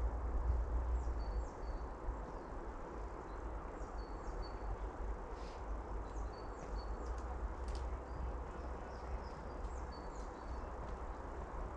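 Wind rumbling on the microphone, with small birds giving short, high chirps again and again throughout.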